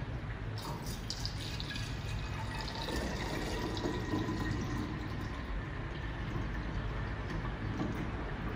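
Green vegetable juice (celery, cucumber and fennel) pouring from a jug into a glass bottle, splashing and trickling as the bottle fills, starting about half a second in. A steady low hum runs underneath.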